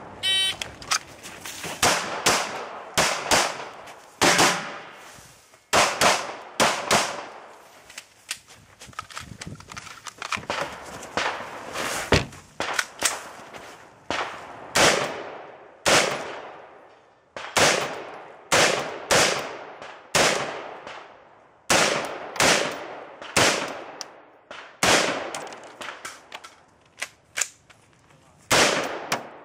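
Semi-automatic AR-style rifle fired in quick pairs and short strings with brief pauses between, each shot followed by a short echoing tail.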